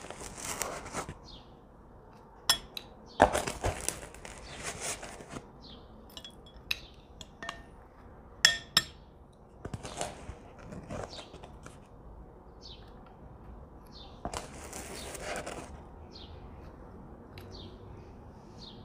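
A metal ice cream scoop scraping and digging into hard ice cream in a plastic tub, with sharp clinks and knocks of the scoop against the tub and a ceramic bowl. The scrapes come in short passes of a second or so, a few seconds apart.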